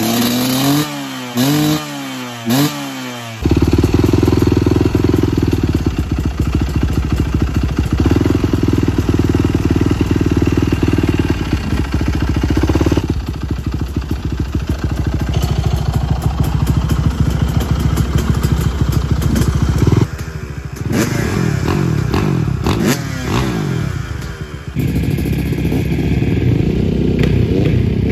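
Motocross dirt bike engines running: quick throttle blips rising and falling in pitch, then a steady idle, then more revving from about twenty seconds in as a bike is ridden off. The sound changes abruptly several times.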